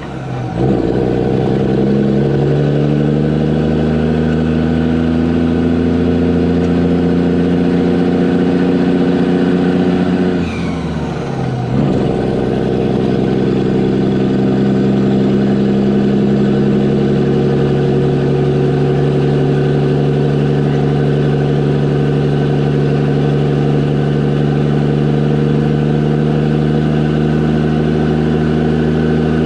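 Diesel dump truck engine pulling hard under load, its pitch climbing slowly as the truck gains speed. About ten seconds in the revs fall away for a gear change, then climb steadily again in the next gear.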